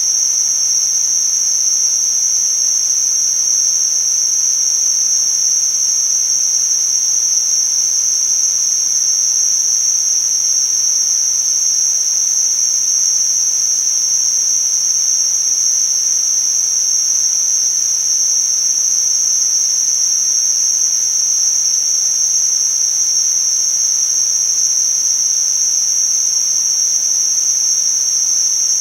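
Tinnitus-masking noise: a steady, unbroken high-pitched hiss confined to a narrow band of pitch, over a much fainter wide hiss.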